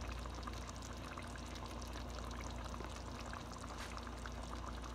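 Pot of brown stew chicken simmering in its sauce: faint steady bubbling with scattered small pops, over a steady low hum.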